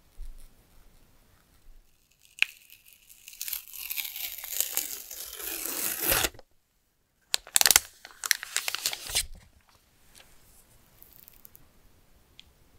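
Protective wrap being peeled off the back of a new Google Pixel 9 phone. A long tearing peel lasts about four seconds and cuts off suddenly. After a short gap a second, shorter peel follows.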